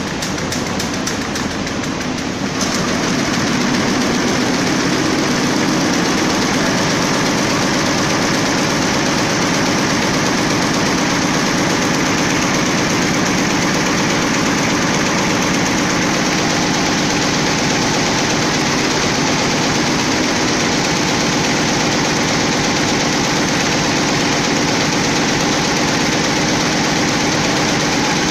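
Schiffli embroidery machine running, a dense steady mechanical clatter from its row of needles and shuttles stitching. It grows louder about three seconds in, then holds steady.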